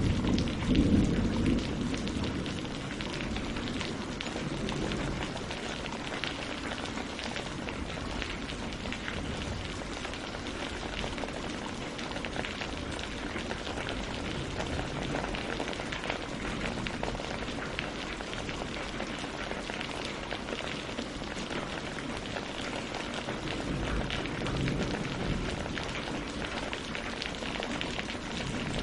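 Steady rain falling on leaves and lake water, a dense patter of drops. A low rumble of thunder fades away in the first couple of seconds, and a fainter low rumble swells again near the end.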